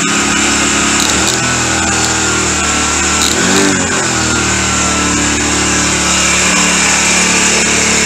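Small gasoline engine of a home-built kayak motor running while its hand throttle grip is worked, the revs rising about a second in, dipping briefly around three and a half seconds, and climbing again near five seconds.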